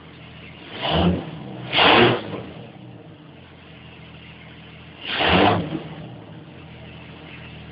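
Jeep engine idling, blipped three times: short revs about a second in, about two seconds in, and about five seconds in, each dropping back to idle.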